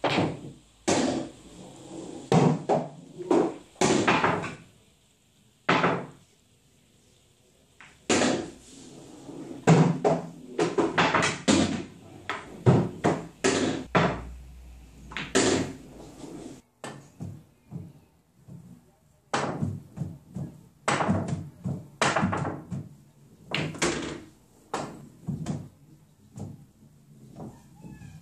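Pool balls knocking against each other, the cushions and the pockets on a pool table: a long run of sharp clacks and knocks in clusters, with short quiet gaps.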